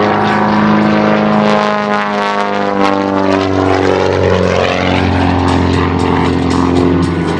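Pitts S1S aerobatic biplane's piston engine and propeller running hard, the note sliding up and down in pitch as the plane maneuvers.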